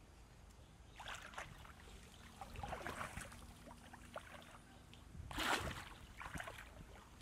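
Shallow water splashing and sloshing as someone wades and works a bamboo basket fish trap in it, in several short bursts, the loudest about five and a half seconds in.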